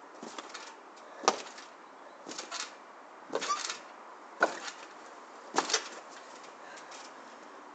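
Stunt scooter and rider bouncing on a trampoline: a series of short thuds and rattles as the deck and wheels land on the mat, about one a second, the sharpest about a second in and twice more in the second half.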